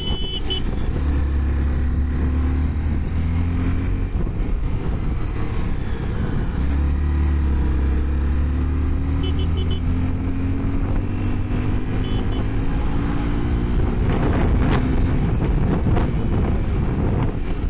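Honda CBR250R's single-cylinder engine running under way as the bike rides through hairpins. Its note rises in pitch twice as the bike accelerates, the second time in a long, gradual climb.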